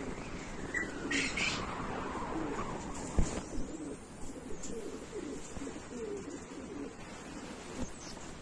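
Pigeons cooing in a run of low, wavering coos, with a sharp knock about three seconds in.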